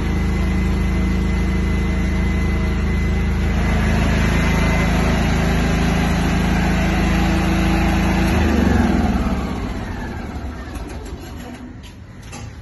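A Bajaj M portable petrol generator runs steadily, then is shut off about nine seconds in and winds down. A few light knocks follow near the end.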